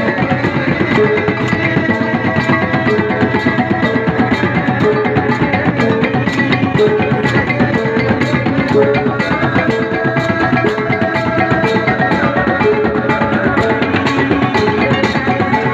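Gordang Sambilan drum ensemble playing: a row of large hide-headed drums beaten with wooden sticks in a fast, steady interlocking rhythm, with a held, repeating melodic line sounding over the drumming.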